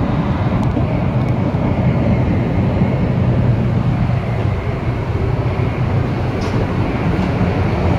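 High-speed bullet train running at speed: a steady low rumble with a rushing noise over it.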